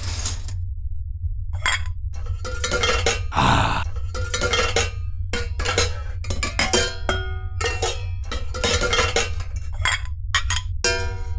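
Metal pots and pans clanging in an irregular string of strikes, one or two a second, each ringing briefly. There is a longer clattering crash about three and a half seconds in and a ringing strike near the end, over a steady low hum.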